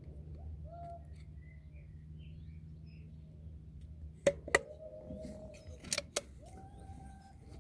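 Homemade rifle fired twice, about a second and a half apart; each sharp crack is followed about a quarter second later by a second crack.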